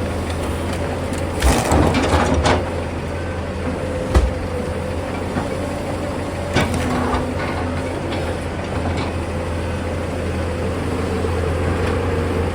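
Tata Hitachi excavator's diesel engine running steadily with a low hum, broken by several sharp knocks, the loudest about one and a half and four seconds in.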